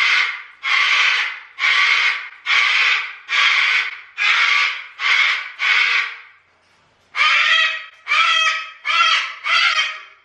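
Cockatoos screeching: a run of loud, harsh screams, one after another less than a second apart, about a dozen in all with a short break after about six seconds.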